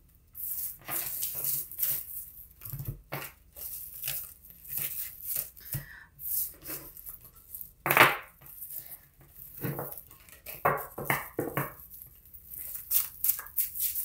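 A deck of tarot cards being shuffled and handled: a run of short papery rustles and slaps, with one louder knock about eight seconds in.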